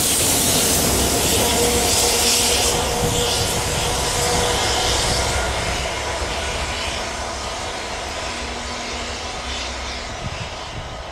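A train running past on the rails, wheel-on-rail noise with a hiss, fading steadily as it moves away, with a faint steady whine held over it.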